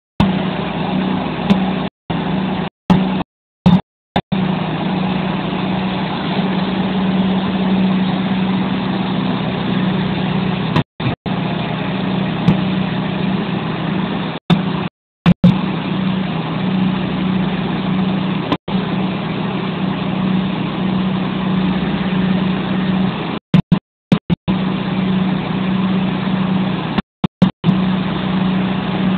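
Diesel engine of a Huddig 1260 articulated backhoe loader running steadily, with a strong low hum. The audio cuts out to silence for brief moments several times, most often in the first few seconds and near the end.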